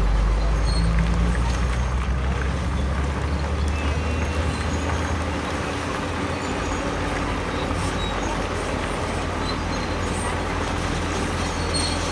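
Heavy diesel engine of earthmoving machinery running steadily under load; its low note shifts down and eases about halfway through.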